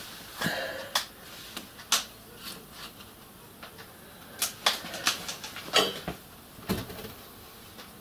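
A handful of light clicks and taps, spread irregularly: hands handling a torch and small objects on a workbench.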